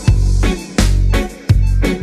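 Background music with a steady drum beat and a prominent bass line.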